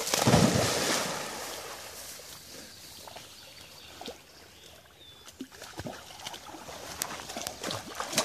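A German Shepherd jumps into a pond with a loud splash, then swims, with softer lapping and small scattered splashes. The splashing picks up again near the end as the dog wades out through the reeds with a stick.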